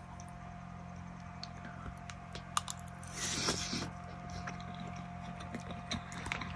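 Someone eating: a metal spork clicking against a metal plate and quiet chewing, with a brief breathy rush about three seconds in, over a steady low hum.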